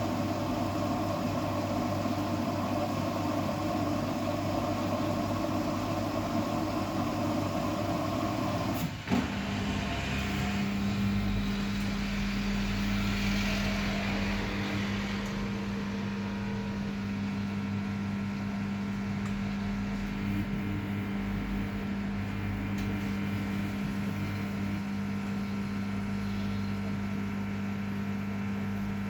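Samsung front-loading washing machine running a wash, its drum motor humming steadily. About nine seconds in a click is heard and the hum shifts to a different, lower pitch, as when the drum changes its turning.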